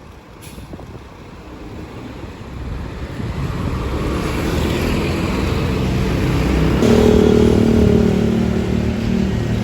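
Tour bus engine approaching, its low rumble growing louder over several seconds; about seven seconds in a steady low droning tone cuts in as it draws closest.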